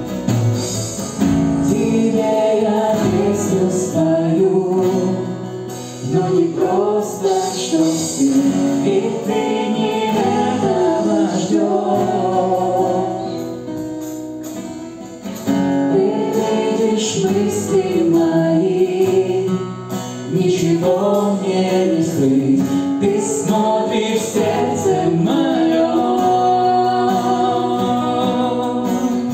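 Live worship band playing a Russian-language praise song: a man's lead vocal with a woman's voice, strummed acoustic guitar, electric guitar and drums. About halfway through the music thins out and grows quieter for a couple of seconds, then the full band comes back in.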